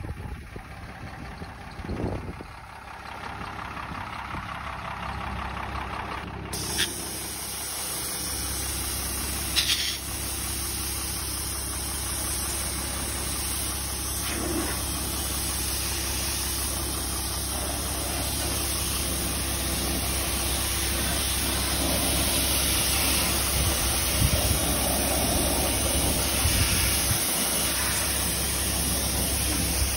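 Pressure washer running: a steady low engine hum with the loud hiss of the high-pressure water jet, which starts about six and a half seconds in, spraying a car's bodywork and wheel.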